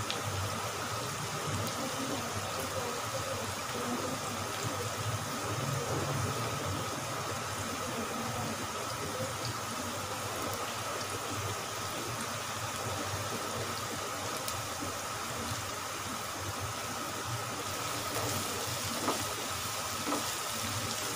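Sliced onions sizzling steadily in hot oil in a pan on high flame, at the stage where they are turning translucent. Near the end a spatula stirs them, with a few short knocks against the pan.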